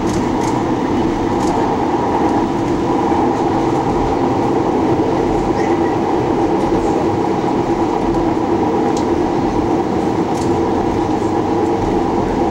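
San Diego Trolley light-rail car running steadily, heard from inside the car: a continuous rumble with a steady hum from the drive, and a few faint clicks from the wheels on the track.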